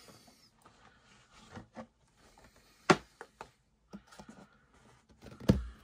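Handling noises from a cardboard box set and plastic 4K disc cases: scattered soft rubs and taps, one sharp click about three seconds in, and a dull knock near the end.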